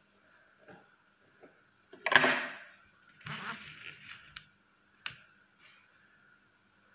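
Close handling noise on the microphone: a loud rustling scrape about two seconds in, then a second rustle with sharp clicks, and a single click about five seconds in, over a faint steady hum.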